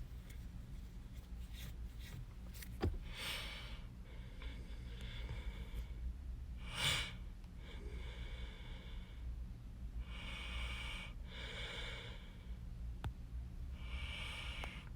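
A person breathing audibly close to the microphone, one breath every couple of seconds, over a steady low hum, with a few soft clicks.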